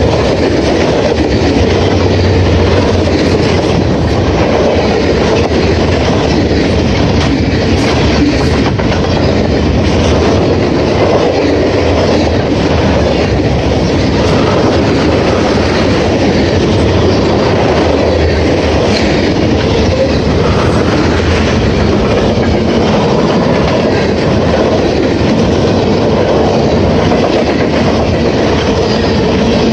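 Long Canadian National freight train's cars rolling past, steel wheels running over the rails in a steady, loud noise with no horn.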